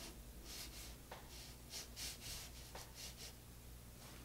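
Faint soft swishes of a watercolor brush stroking across watercolor paper, a handful of short strokes, over a low steady hum.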